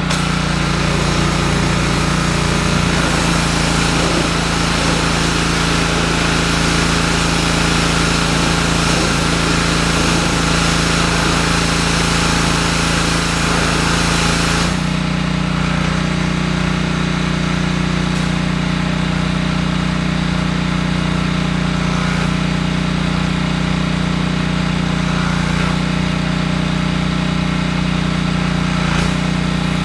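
Simoniz 2700 PSI gas pressure washer's 173cc four-stroke overhead-valve engine running steadily, with the hiss of the high-pressure water jet over it. The spray stops abruptly about halfway through while the engine keeps running.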